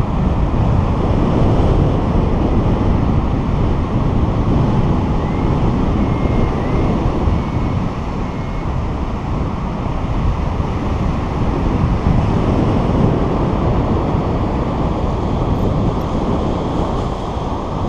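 Airflow buffeting a paraglider pilot's action-camera microphone in flight: a loud, steady, low rush of wind noise.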